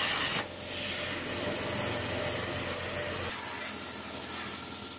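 CNC plasma cutter torch cutting 6 mm steel plate, a steady hiss. The sound drops a step about half a second in and changes again after about three seconds as the cut finishes.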